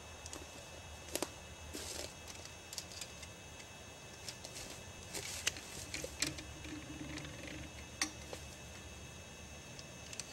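Scattered light clicks and knocks from hands working on a homemade steel chainsaw-mill frame, with a short rustle of dry leaf litter underfoot about two seconds in. No saw is running.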